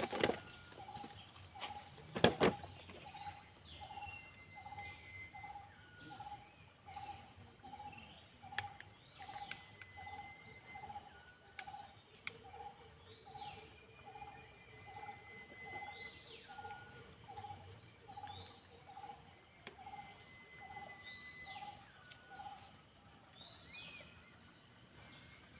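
Birds calling: one repeats a single low note evenly, nearly twice a second, stopping shortly before the end, while others give short rising-and-falling calls every second or two. A sharp knock about two seconds in is the loudest sound.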